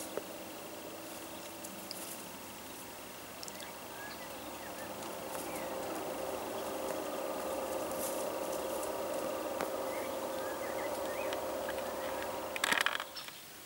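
A steady mechanical hum holding a few even pitches, slowly getting louder, then stopping abruptly near the end with a short burst of noise; a few faint short chirps are heard over it.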